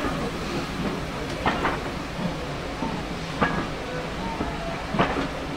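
Passenger coaches of a steam train rolling along with a steady rumble, the wheels clicking sharply over rail joints every second and a half or so, one joint a quick double click.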